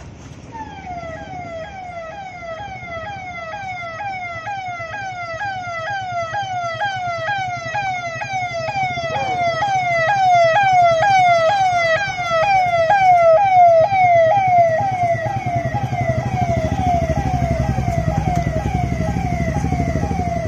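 Vehicle siren sounding a fast repeating pattern, each cycle a quick falling tone, about two a second, growing louder as it draws near. Low engine rumble of passing vehicles rises under it near the end.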